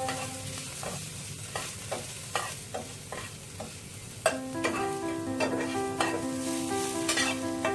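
A spatula scraping and knocking against a nonstick frying pan about twice a second, stirring chopped onion, tomato and green chilli that sizzle in hot oil. Background music comes in about halfway through.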